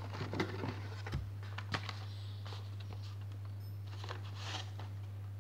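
Plastic blister-card packages of Hot Wheels cars clicking and rattling against each other and the cardboard case as one is pulled out, a few light clicks in the first two seconds and a soft rustle about four seconds in, over a steady low hum.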